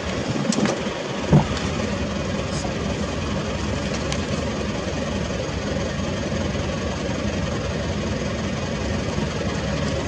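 A vehicle engine idling steadily, with a few sharp clicks in the first second and a half.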